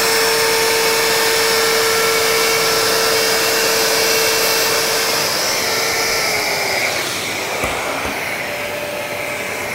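DeWalt plunge router running with a dust extractor drawing through its hose, a steady whine over the rush of air. About five seconds in the router is switched off and its whine falls away as the motor winds down, leaving the extractor running.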